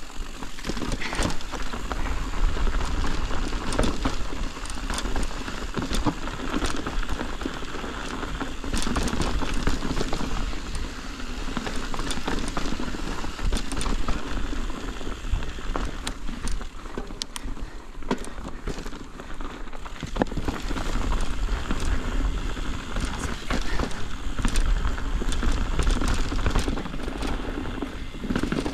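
Ibis Ripmo mountain bike riding downhill over loose, rocky ground: tyres crunching and rattling over stones, with frequent sharp clicks and knocks, over a steady low rumble.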